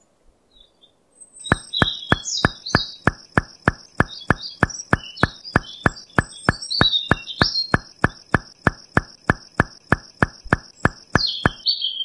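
Evenly spaced knocks, about four a second, as small white pebbles are set down one by one, with birds chirping over them. The knocks start about a second and a half in and stop shortly before the end.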